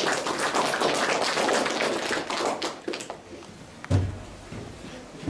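Audience applauding, a dense patter of claps that fades out about three seconds in, followed by a single thump about a second later.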